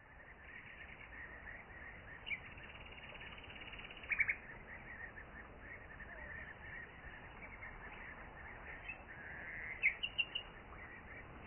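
Outdoor birdsong: birds chirping steadily, with sharp louder calls in short runs of three or four, about a third of the way in and near the end.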